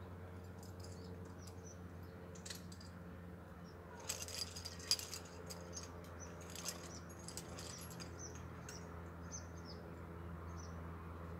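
Metal climbing gear, carabiners and quickdraws, clinking and jangling in a cluster of light clicks about four to seven seconds in, over a faint steady low hum.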